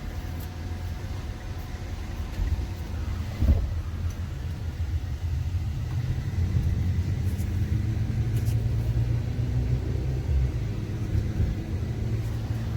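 Car running, heard from inside the cabin: a steady low engine and road rumble, with a single knock about three and a half seconds in. From about six seconds in the engine note rises, as the car accelerates.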